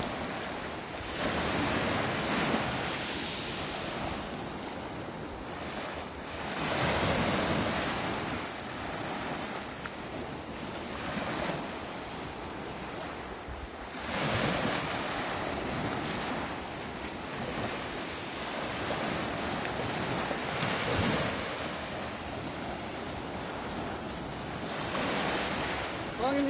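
Sea waves washing in, a rushing surge that swells and fades every several seconds, with wind buffeting the microphone.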